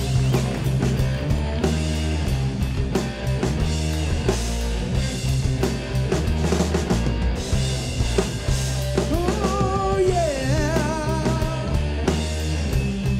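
Live rock'n'roll band playing, with drums, bass and guitar over a steady beat. A wavering melodic line comes in about nine seconds in.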